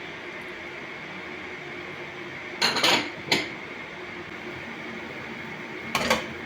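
Kitchen dishes and utensils clattering: a short burst of clinks about three seconds in, a single knock just after it, and another clatter near the end, over a steady background hum.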